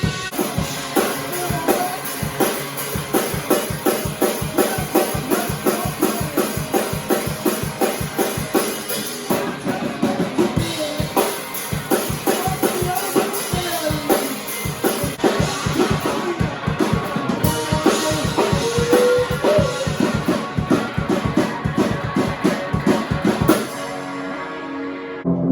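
Rock band playing, the drum kit keeping a fast, steady beat of about five hits a second under pitched instruments.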